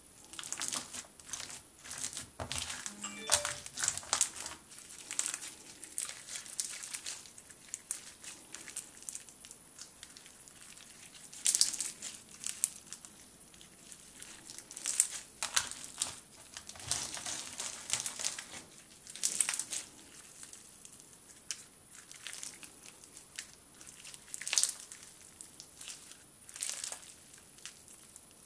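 Clear-glue fishbowl slime packed with plastic fishbowl beads, squeezed, kneaded and stretched by hand. It gives irregular crunchy crackles and clicks, with louder bursts every few seconds.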